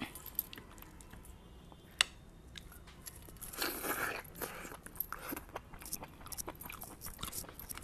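A person biting into and chewing a cooked chicken leg, with small wet mouth clicks and crunches, the loudest chewing about halfway through. A single sharp click about two seconds in.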